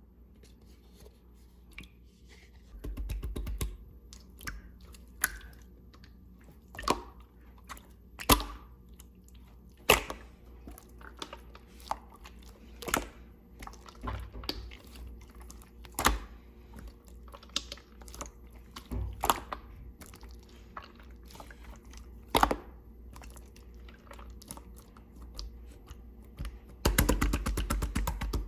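Slime being squeezed and poked by hand, with sharp air-bubble pops every couple of seconds and two stretches of fast wet crackling, one a few seconds in and one near the end.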